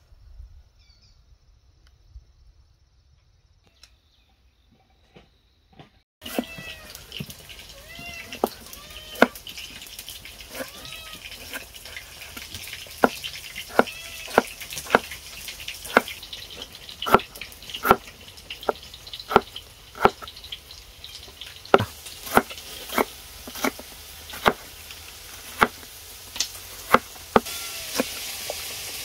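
Faint for about six seconds, then sharp knocks begin suddenly, coming about once or twice a second over a steady hiss. A small animal gives a few short calls that rise and fall, among the first knocks.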